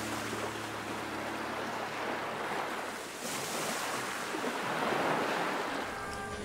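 Sea surf on a sandy beach: waves breaking and washing in, the rush swelling and easing every second or two. Music comes in near the end.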